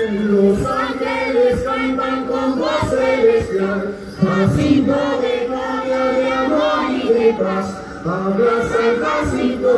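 Group of female voices singing the song of a traditional Andean dance in chorus, with long held notes, and a thump now and then.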